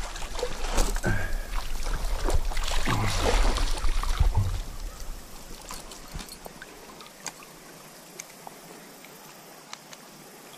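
Water splashing and sloshing for about five seconds, then the quieter steady trickle of a stream with scattered small clicks.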